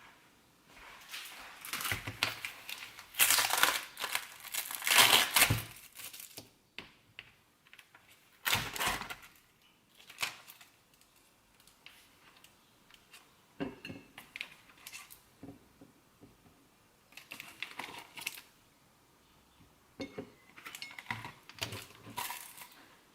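Plastic food packaging crinkling and rustling as it is handled and opened, in several bursts that are loudest in the first six seconds, followed by scattered clicks and knocks.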